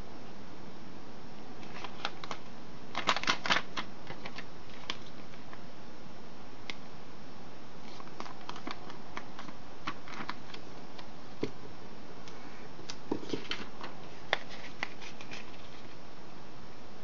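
Origami paper being folded and creased by hand, with crisp crackles and rustles in short clusters about three seconds in, again around eight to ten seconds, and near the end. A steady hiss lies under it.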